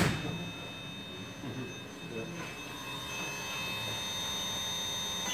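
Yaskawa servo motor running on its Servopack drive on a test bench, giving a steady high-pitched whine of several pure tones. It opens with a sharp click.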